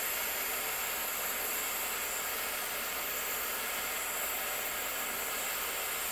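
Jeweller's gas torch flame hissing steadily while melting silver.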